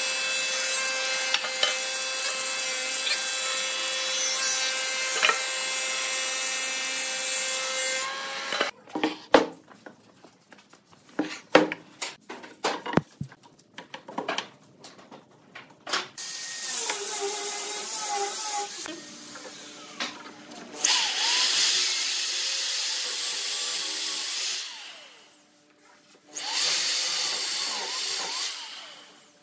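A thickness planer runs with a wooden board feeding through it, a steady whine with a hiss of cutting that stops suddenly about eight seconds in. A few sharp knocks and taps follow as the board is handled. Then a corded electric drill bores holes into the wood through a dowelling jig, running in several spells with a short break just before the end.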